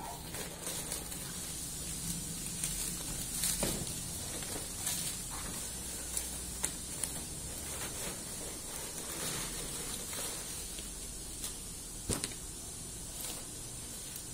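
Shredded paper packing rustling and crinkling as hands pull it out of a cardboard box, with scattered sharp crackles and taps against the cardboard, over a steady low hum.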